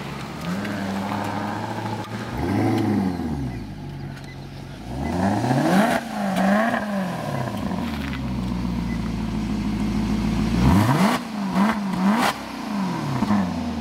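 Maserati GranCabrio's 4.7-litre V8 idling, then blipped through several quick revs that rise and fall back to idle: one about two seconds in, a run of blips near the middle, and another run near the end.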